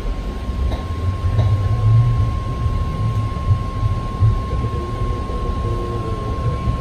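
BART Fleet of the Future train pulling out of the station and picking up speed, heard from inside the car: a low rumble that grows over the first couple of seconds, with a steady high whine.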